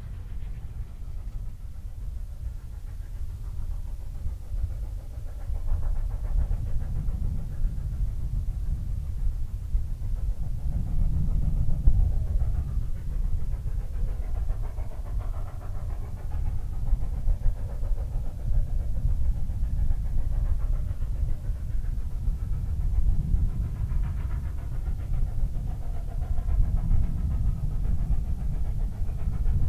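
Distant Rio Grande K-36 narrow-gauge steam locomotive working, its exhaust chuffing over a heavy, steady low rumble that grows louder about five seconds in.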